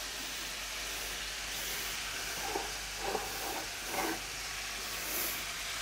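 Chicken thighs and drumsticks browning skin side down in hot olive oil: a steady sizzle, with a few soft pops in the middle.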